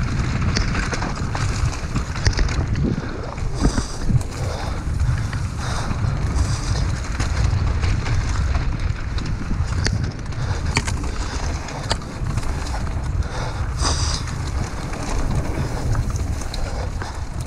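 Mountain bike descending a dirt singletrack at speed: wind buffeting the camera's microphone over the rattle of the bike and tyres on the trail, with scattered sharp knocks from bumps.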